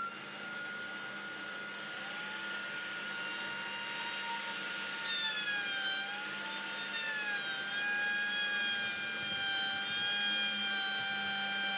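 DeWalt compact router with a bearing-guided straight bit running at speed and flush-trimming a plywood edge against a template: a steady high whine whose pitch sags slightly in the middle as the bit takes the cut, growing a little louder. The bit cuts easily without straining or smoking, because the waste was first cut close to the template with a jigsaw.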